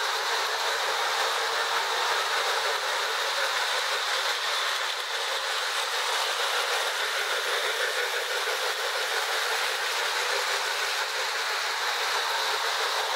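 Marx 1666 toy steam locomotive running on three-rail track: a steady running noise of its electric motor and wheels on the rails.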